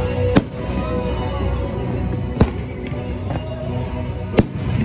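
Three fireworks shells bursting, sharp bangs about two seconds apart, over the show's music soundtrack.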